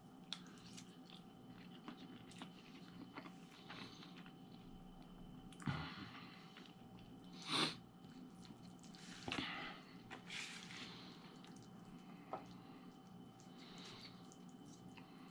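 A man quietly chewing a mouthful of spaghetti, with soft wet mouth sounds that come and go and a few small clicks of a plastic fork against a takeout box.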